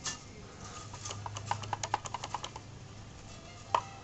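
Plastic Lego bricks of a vending-machine mechanism clicking and rattling as it is worked: a click, then a quick run of about a dozen clicks, then one sharper click near the end.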